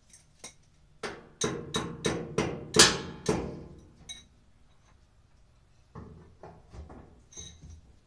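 A run of about seven sharp metallic knocks, roughly three a second, each with a brief ring, the loudest near the end of the run. It is followed a few seconds later by lighter clicks and rattles of parts being handled inside the washer cabinet.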